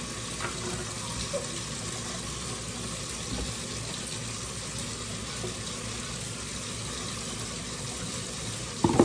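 Kitchen tap running steadily into the sink, a continuous even hiss, with a sudden loud clatter just before the end.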